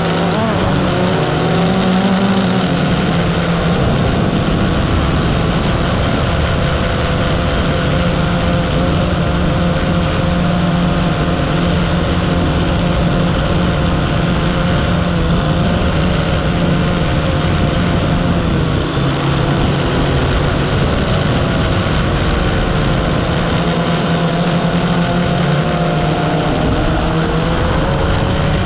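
Drone's motors and propellers running steadily, heard from its onboard camera, over wind rushing past the microphone. The motor pitch drifts a little.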